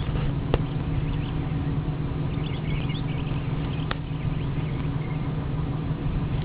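Nissan Frontier pickup's engine running steadily while driving off-road in mud, with a few sharp knocks and a brief cluster of high chirps about halfway through.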